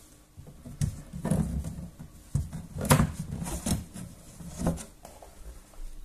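Fibreboard specimen boxes being handled: about half a dozen hollow wooden knocks and scrapes as the boxes are shifted on the stack and a lid is lifted off, the loudest knock about three seconds in.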